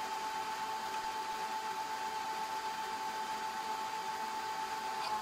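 Cooling fans of an HP ESP115 server power supply running steadily, with a steady high whine over a whoosh of air.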